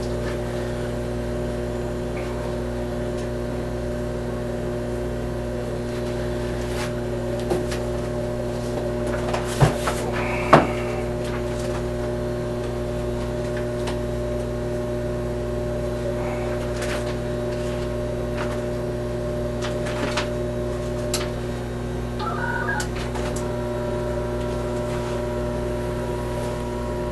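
Steady electrical hum from the siren control and radio equipment, with a couple of short clicks about ten seconds in and a faint steady tone joining near the end.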